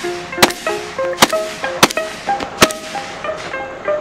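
Four gunshots from a shouldered long gun, spaced a little under a second apart, over background music.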